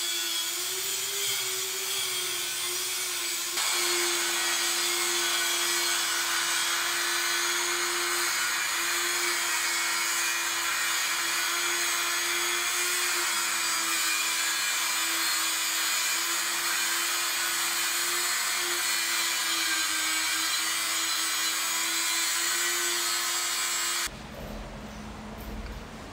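Angle grinder cutting through old metal water pipe: a steady motor tone under a harsh, continuous cutting noise, the pitch sagging slightly now and then under load. It stops abruptly near the end.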